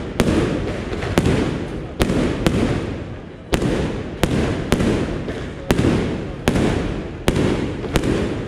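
Aerial firework shells bursting in quick succession, about a dozen sharp bangs spaced half a second to a second apart, each trailing off in a rolling rumble.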